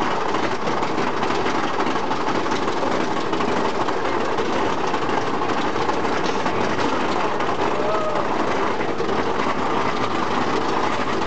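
Mine-train roller coaster cars rattling and rumbling steadily along the track, heard from on board.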